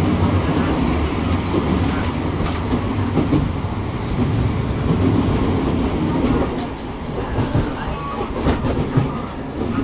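Tram running on its rails, heard from inside the car: a steady low rumble of wheels on track, with scattered sharp clacks, a cluster around two to three seconds in and more near the end.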